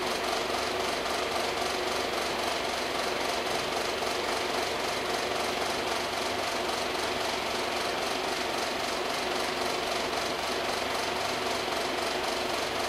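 Steady, even hum of an electric motor running continuously in a woodworking shop, with no change in speed.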